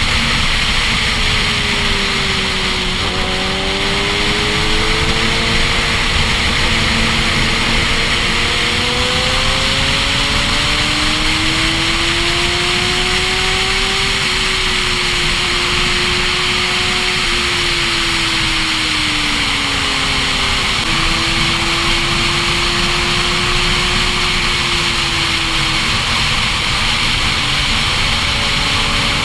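Heavy wind rush on the microphone of a motorcycle at highway speed. Under it, a motorcycle engine note slowly rises and falls in pitch, with a couple of sudden pitch steps.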